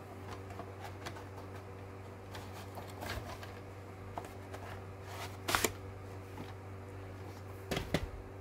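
A plastic VHS cassette and its cardboard slipcover being handled, with rustling and scraping as the tape and sleeve slide together. Two louder scrapes come about five and a half and eight seconds in, over a steady low hum.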